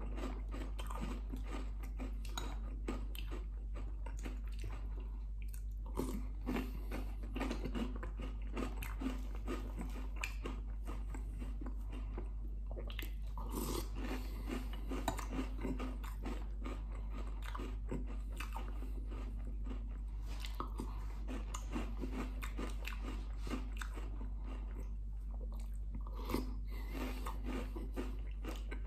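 Crunchy breakfast cereal being chewed close to the microphone, many small crunches and clicks, over a steady low hum.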